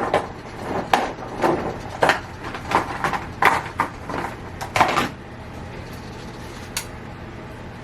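Kitchen clatter as cooking gets under way: a series of separate knocks and taps of dishes, pan and utensils over the first five seconds, then a low steady hum with one faint click.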